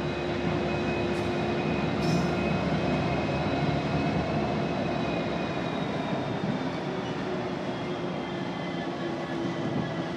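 Union Pacific diesel switching locomotive running steadily, with a thin high whine that slowly drops in pitch.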